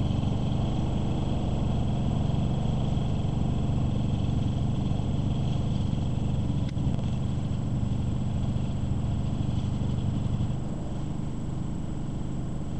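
Trencher's engine running steadily as the machine works along the trench away from the listener, a little quieter after about ten seconds. One sharp click about seven seconds in.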